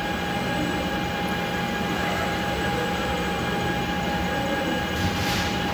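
Concrete 3D printing machinery running steadily: a continuous mechanical noise with a steady whine and low hum, and a short hiss about five seconds in.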